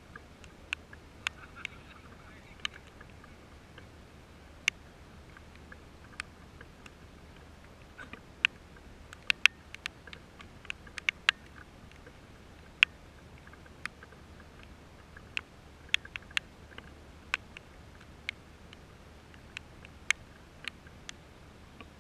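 Scattered sharp ticks at uneven intervals, about one to two a second and of varying loudness, over a faint steady hiss: raindrops striking something close to the microphone.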